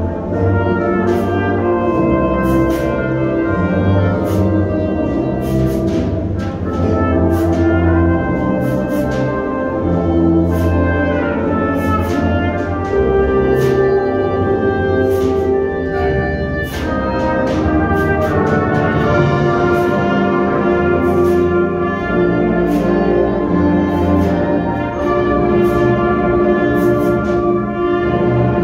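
High school concert band playing a holiday piece: brass and woodwinds on held and moving notes, with sharp percussion strokes keeping a steady beat.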